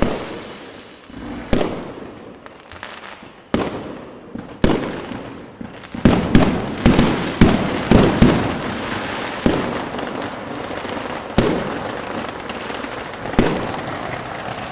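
Fireworks going off: sharp bangs with echoing tails over continuous crackling, a few at first, then a quick run of bangs about six to eight seconds in, then scattered again.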